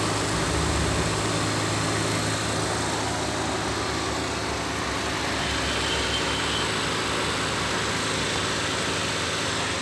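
Engine idling steadily, an even unbroken running sound.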